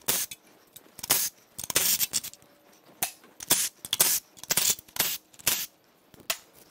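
Ratchet wrench clicking in a dozen or so short, uneven bursts as the engine's oil pan bolts are loosened.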